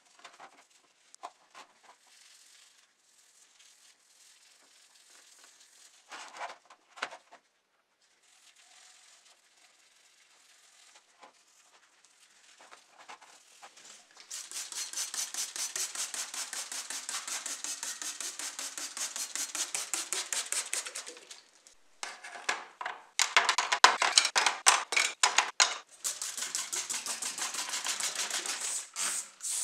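Foaming cleaning solution faintly fizzing and crackling on a die-cast model car body, with a few soft rubbing clicks. About halfway through, a much louder, rapid rasping starts, made of fast repeated strokes. It pauses briefly, then comes back choppier and louder.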